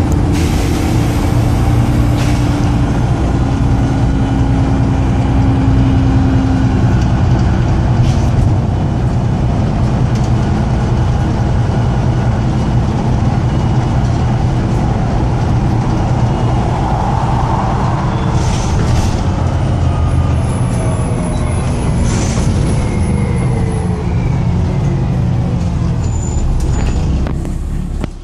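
Volvo B7TL double-decker bus's diesel engine running loud and over-revving as the bus struggles to pull away, with the hiss of a bad turbo leak, a sign of a failing turbo or leaking charge-air pipework. A few short bursts of air hiss from the brakes break in, and the engine note slides down a little past the middle.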